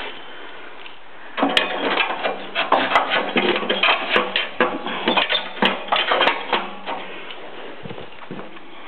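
Rapid clicking and rattling of hard objects being handled, in a dense run starting about a second and a half in and easing off about two seconds before the end.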